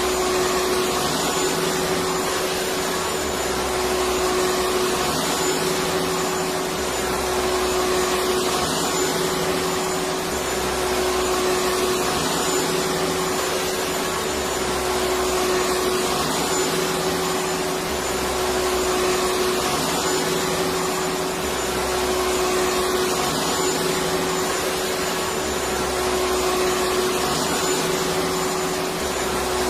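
Electric vacuum cleaner running continuously: a steady motor whine with a constant hum, swelling slightly about every three and a half seconds.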